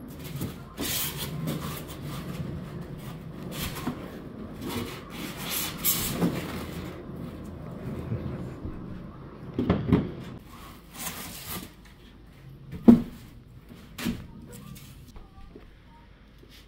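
Flat-pack bookshelf panels and their packaging being handled: boards sliding and rubbing against each other, with scattered knocks. The loudest sharp knock comes about 13 seconds in.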